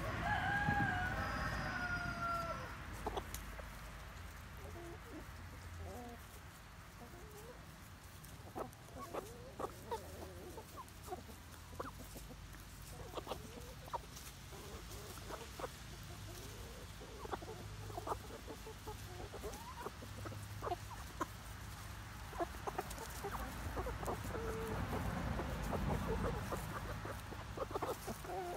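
A flock of pullets clucking while they forage, many short clucks scattered through, with a longer wavering call about a second in. A low rumble runs underneath.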